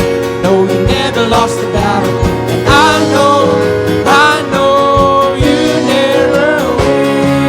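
Worship band music: a band playing over a steady drum beat, with a singer's voice gliding between long held notes.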